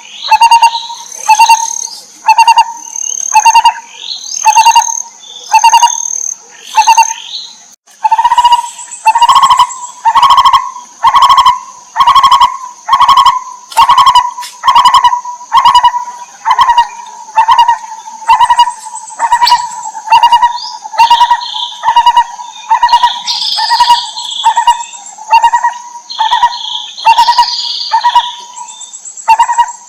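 Barbet calling over and over, a short hollow note about one and a half times a second, with a brief break about eight seconds in. A thin, steady, high insect-like drone runs underneath, and higher chirps come in now and then in the second half.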